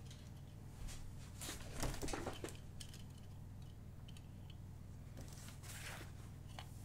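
Faint rustling and handling noises as a person moves about close to the microphone, putting on sunglasses and then a cap, over a steady low hum. The loudest rustles come about two seconds in, with another spell near the end.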